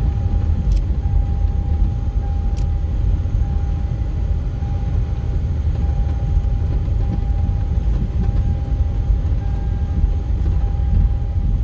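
A vehicle travelling along a road, a steady low rumble throughout, with two brief clicks in the first few seconds.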